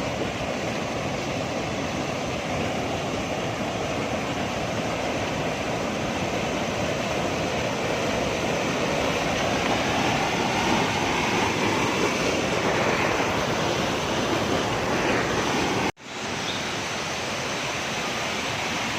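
Steady rush of flowing water, a constant even roar, cut off for an instant about sixteen seconds in and then resuming.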